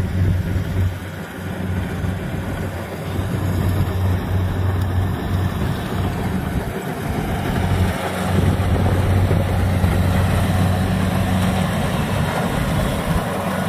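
Rice combine harvester engines running steadily while cutting, a constant low hum that grows a little louder about halfway through.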